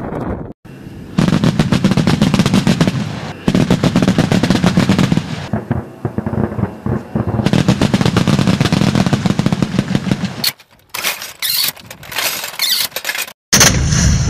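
ZU-23-2 twin 23 mm anti-aircraft autocannon firing long, rapid bursts, several bursts in a row with short breaks between them. The firing stops abruptly near the end, then starts again loudly.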